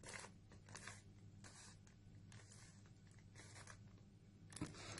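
Faint plastic scraping of a 3x3 Rubik's cube's layers being turned by hand, about six quick turns roughly a second apart, over a low steady hum.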